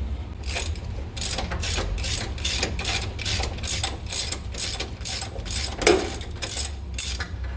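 Socket ratchet wrench clicking in a steady run, about two to three clicks a second, as an 11/16 factory steering box bolt is loosened. There is one louder knock about six seconds in.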